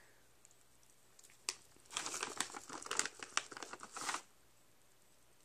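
Plastic treat bag crinkling as a hand rummages in it: a single click about one and a half seconds in, then roughly two seconds of crinkling that stops suddenly.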